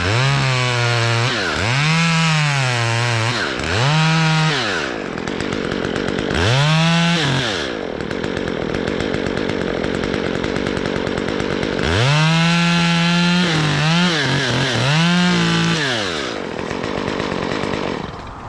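Two-stroke chainsaw being revved in repeated throttle bursts, its pitch climbing and dropping several times, then held high for a longer run near the end as it cuts.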